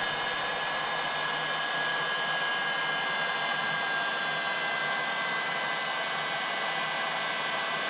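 Heat gun running steadily, a rush of blowing air with a high steady whine, as it shrinks heat-shrink tubing over a coax feed line's ferrite-bead choke.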